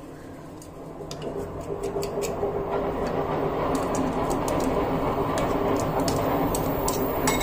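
A steady mechanical hum fades in about a second in and holds, with scattered light metallic clicks from a metal hand-held garlic press being squeezed over a bowl.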